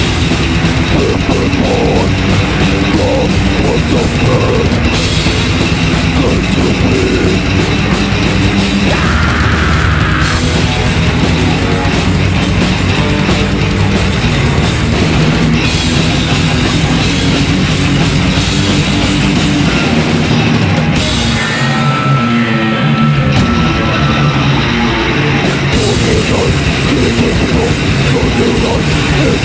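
A live metal band playing loudly: distorted guitars, bass and a drum kit. The lowest bass notes drop out briefly a little over twenty seconds in.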